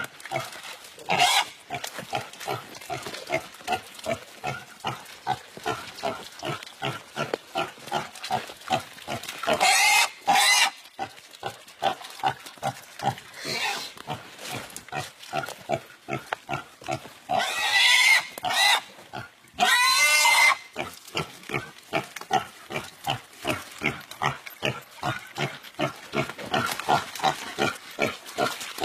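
Pig squealing in distress as dogs attack it: short cries repeated about three times a second throughout, broken by long, loud screams about ten seconds in and twice more around seventeen to twenty seconds.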